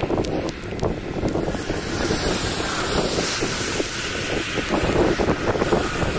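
Thunderstorm wind blowing hard across the microphone: a continuous rushing noise that swells and dips in gusts.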